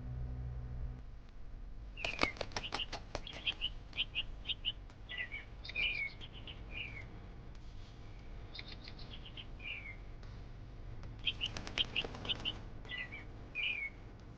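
Small pet birds chirping in three bouts of short, high chirps. Each of the first and last bouts opens with a quick run of sharp clicks or flutters.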